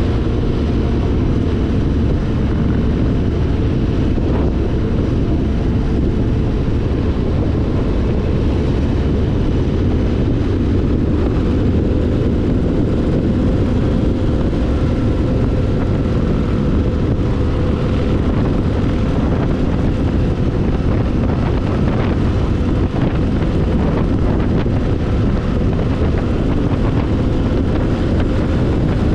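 Motorcycle engine running at a steady cruising speed, mixed with wind rushing over the microphone. The sound is loud and even.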